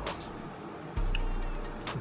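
Background music with a heavy bass beat: a deep bass note comes in about a second in, under crisp high ticks like hi-hats.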